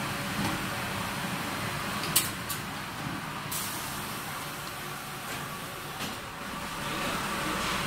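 Five-station 5-gallon bottled-water filling machine running: a steady mechanical hum and hiss with a few sharp clicks, the loudest about two seconds in.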